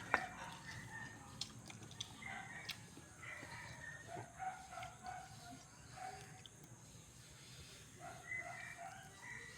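Faint rooster crowing, several times over, with a single sharp click just after the start.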